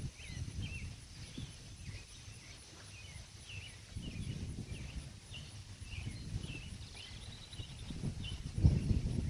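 Small birds chirping over and over in short calls, over gusty wind rumbling on the microphone that swells strongest near the end.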